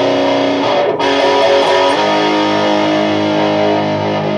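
Electric guitar with Bare Knuckle Warpig ceramic humbuckers, heavily distorted through a high-gain amp in drop A-flat tuning, playing sustained low chords that change about one and two seconds in, the last one held and ringing, picked up through a camera's built-in microphone.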